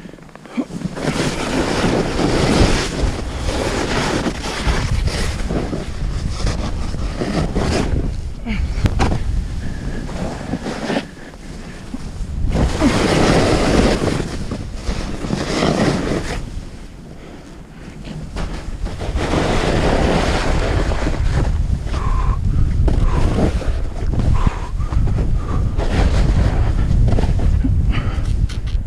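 Wind buffeting a helmet camera's microphone at speed, mixed with the scraping of edges cutting through chopped, bumpy snow. The rush swells and fades every few seconds with the turns.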